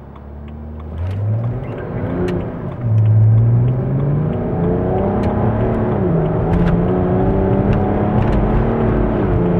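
BMW 335d's tuned twin-turbo three-litre straight-six diesel, heard from inside the cabin, pulling away at full throttle about a second in. The engine note climbs with brief drops in pitch at upshifts near three and five seconds in, then holds steady at speed.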